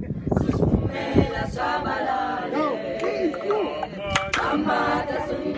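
A group of mixed voices, children and adults, singing a chant-like song together a cappella, with a sharp click about four seconds in.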